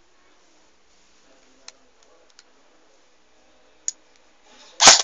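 Airsoft M4A1 rifle: a few faint clicks and one sharper click as it is handled, then right at the end the first loud shot of a string of shots fired about three a second.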